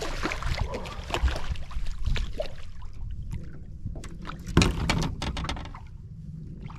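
Hooked largemouth bass splashing and thrashing at the surface beside the boat, with a loud knock against the boat a little past the middle as it is brought aboard. A low rumble of wind or water sits underneath.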